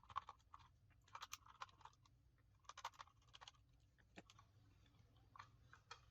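Faint small clicks and scrapes of a Phillips #0 screwdriver working tiny screws out of a computer mouse's plastic base, coming in short clusters.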